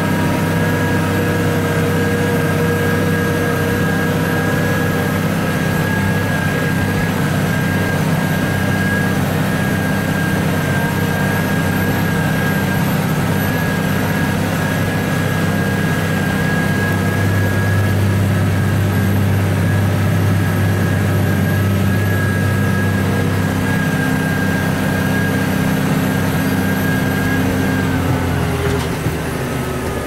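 New Holland T7050's six-cylinder turbo diesel running steadily under ploughing load, heard from inside the cab, with a thin steady whine above the deep engine note. Near the end the engine note drops.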